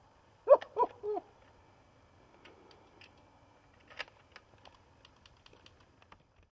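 A man's brief voice about half a second in, then a few seconds of faint, scattered clicks and taps, with a sharper click about four seconds in.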